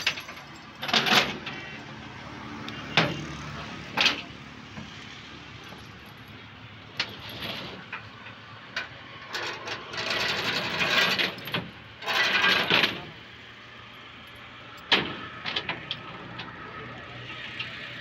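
Heavy steel tie-down chain clanking and rattling against a steel trailer deck as it is handled, with several sharp single clanks and a longer spell of rattling toward the middle.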